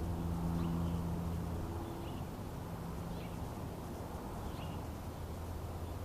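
Short high bird chirps, about one a second, over a steady low hum whose tones fade about two seconds in.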